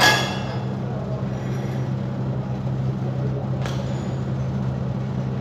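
Steady low machine hum, with a loud ringing metal clang right at the start that dies away within half a second, and a fainter knock about three and a half seconds in.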